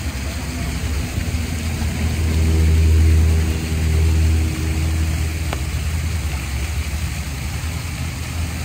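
A road vehicle's engine passing by, swelling to its loudest about three seconds in and fading away, over a steady low rumble of traffic.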